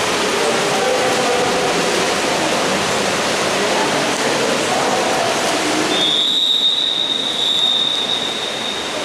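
Steady noise of a water polo game with voices and shouts in the hall; about six seconds in, a long steady high-pitched tone, a referee's whistle or game signal, sounds for about three seconds.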